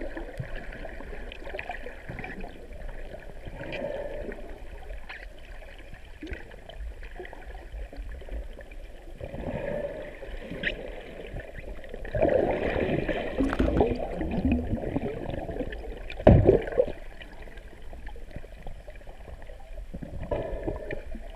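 Muffled underwater water noise heard from below the surface: swirling and bubbling from swimmers moving through shallow water. It gets louder for a few seconds about halfway through, followed by a single sharp knock.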